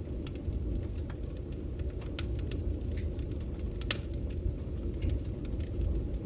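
Campfire crackling: irregular sharp pops and snaps of burning wood, one louder snap about four seconds in, over a steady low rush of the fire.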